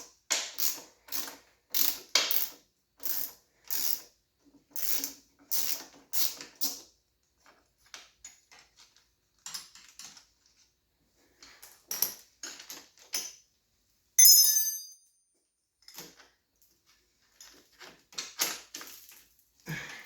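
Socket ratchet clicking in short strokes, about one a second, while a bolt is worked loose on the engine's top end. After a sparser stretch comes a single loud ringing metal clink, then more ratchet strokes near the end.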